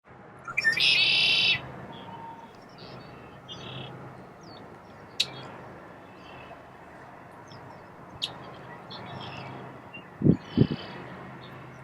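Wild birds calling: one loud, harsh call about a second in, then scattered shorter chirps and calls over a faint steady low hum. Two low thumps near the end are the loudest sounds.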